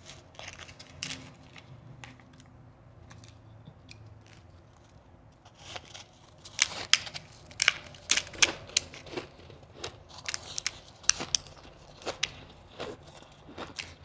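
Fingers scooping shaved ice in a foil pan with faint crackling, then from about six seconds in, loud, sharp crunches close to the microphone as mouthfuls of shaved ice are bitten and chewed.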